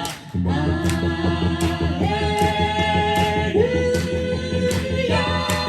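A cappella vocal group singing held chords without recognisable words over a low sung bass line, with a steady beat; the chord changes three times.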